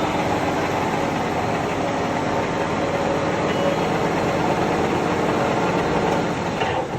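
Metalworking lathe running with a steady mechanical noise, which drops off sharply just before the end.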